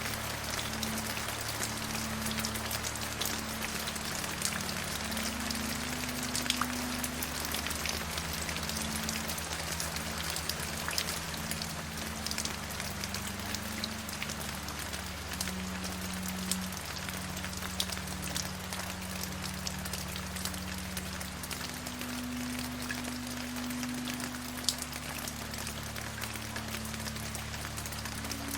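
Steady rain, an even hiss with scattered sharp drop ticks, over a soft low drone of held notes that shift in pitch every few seconds.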